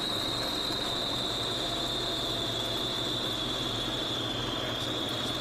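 Light single-engine propeller airplane's engine running at idle, heard from inside the cockpit during the landing rollout, with a steady high-pitched whine that drifts slightly lower.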